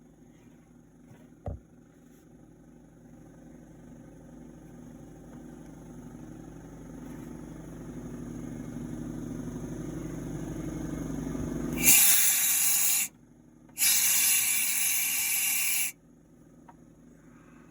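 A low mechanical rumble grows steadily louder and cuts off abruptly, followed by two loud bursts of hissing, the first about a second long and the second about two seconds.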